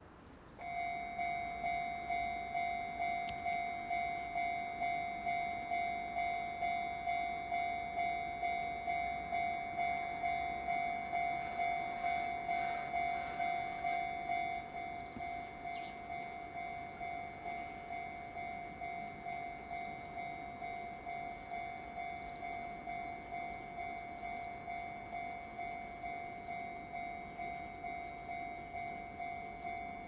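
Japanese level-crossing warning bell ringing in a steady, even rhythm of about two strokes a second, dropping somewhat in volume about halfway through. Under the bell in the first half, a JR Central 373 series electric train runs past over the crossing.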